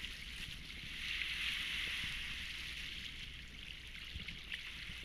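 Steady rushing and hiss of sea water washing around a sailboat's hull, swelling slightly about a second in.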